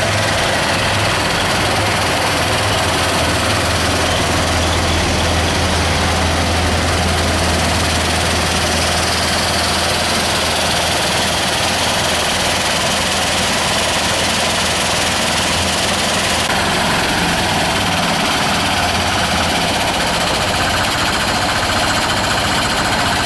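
Engine-driven soil screening machinery running steadily: a low engine drone under a constant broad noise. The drone eases about two-thirds of the way through.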